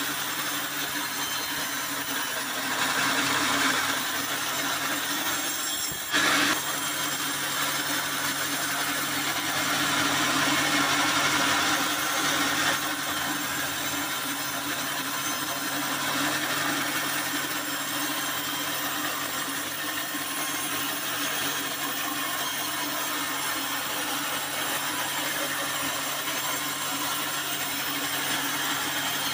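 Band sawmill blade cutting lengthwise through a hard acacia log: a continuous hissing, rasping cut over a steady hum. The cut grows louder for a second or so near the start and again for a few seconds around the middle, with a brief loud burst about six seconds in.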